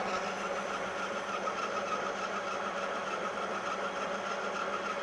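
LG-2080DS geared-head engine lathe running and taking a cut under power feed, a steady hum with a faint whine. The feed rate is turned well up, yet the metal chips are still coming off long and stringy rather than breaking.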